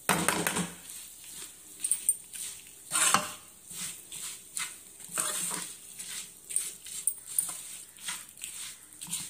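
Metal spoon scraping and knocking against a pan, stirring a thick pickle paste, in a run of short irregular strokes. A brief whine-like pitched sound comes about three seconds in.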